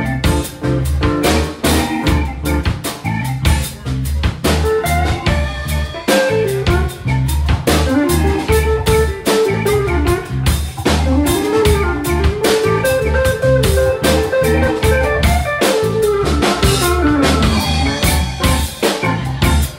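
Live blues-rock band playing: drum kit with a steady beat and rimshots, electric bass, keyboard and electric guitar, with a melodic lead line bending up and down on top.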